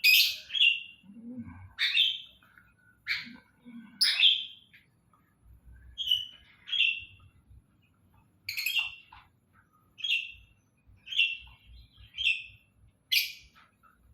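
Caged birds giving short, sharp chirps, repeated irregularly about once a second.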